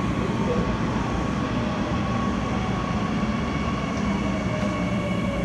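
Seoul Subway Line 9 9000-series electric train running underground: a steady rumble and rush of wheels on rail, with a thin steady whine and a faint tone sliding slowly lower in the second half.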